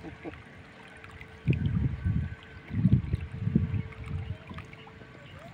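Shallow river water splashing and sloshing at the bank in a few short surges as a hooked catfish is handled and grabbed at the water's edge.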